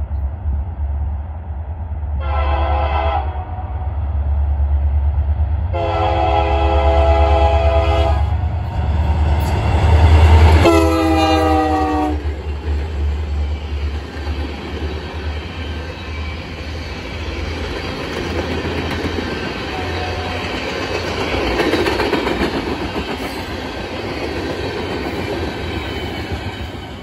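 Union Pacific diesel locomotive sounding its K3L five-chime air horn in three blasts: a short one about two seconds in, a longer one, and a last one that drops in pitch as the locomotives pass, all over a heavy low engine rumble. After that the freight cars roll past with a steady rumble and clacking of wheels on the rails.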